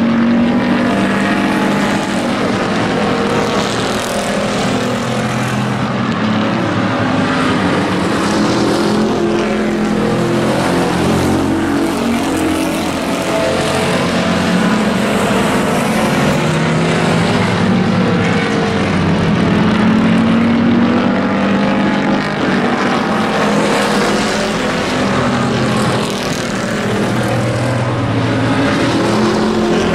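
A pack of hobby-class race pickup trucks lapping the oval at racing speed, several engines running together. Their engine notes overlap and rise and fall in pitch every few seconds as trucks pass and accelerate out of the turns.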